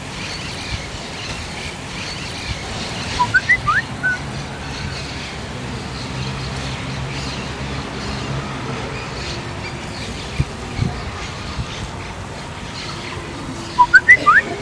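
A mobile phone's message alert, a short bird-like tweet of three or four quick rising chirps, sounds twice about ten seconds apart over steady outdoor background noise. A couple of soft clicks come in between.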